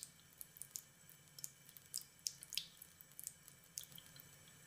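Water dripping from a leaking tap: faint, sharp drips falling unevenly, about two or three a second. The drip comes from a worn tap spindle that lets water leak through continuously.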